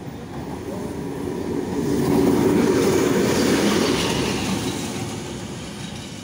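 Pakistan Railways PHA-20 diesel-electric locomotive running light and passing close by at speed. Its engine and wheels on the rails grow louder, peak about two to four seconds in, then fade as it goes away.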